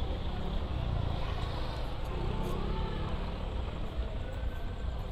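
Street traffic noise: a steady low rumble of passing and idling vehicles, with faint voices in the background.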